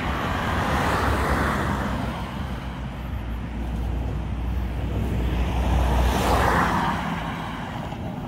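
Road traffic passing: two vehicles swell up and fade away, one about a second in and another around six seconds in, over a steady low rumble.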